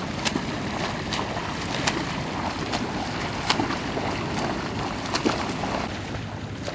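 Open-water noise: a steady rush of wind and water with irregular sharp slaps and splashes, the loudest about three and a half and five seconds in.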